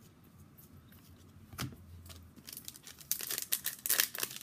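Foil wrapper of a hockey card pack being torn open and crinkled: one soft click about a third of the way in, then rapid, bright crackling from about halfway on.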